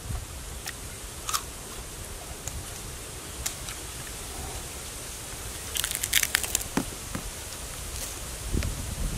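Knife cutting into the crisp, fibrous heart of a palm trunk, giving sharp crackles and snaps, scattered at first and then a quick cluster about six seconds in, over a steady background hiss.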